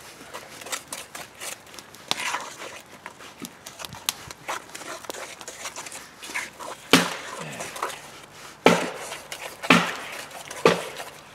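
Wooden spoon stirring thick batter in a cast iron Dutch oven, a run of soft scrapes and clicks. From about seven seconds in come four loud knocks, about a second apart.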